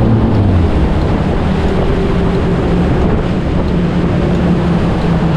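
A boat's engine running steadily under way, with water rushing past the hull and wind buffeting the microphone.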